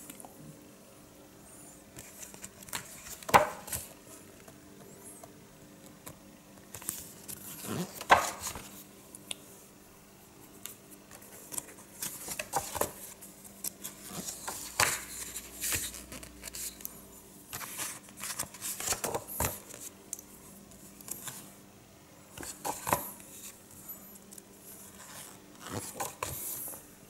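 Paper pages of a large hardcover book being turned and handled: scattered rustles and flicks of paper, with two louder sharp clicks about three and eight seconds in.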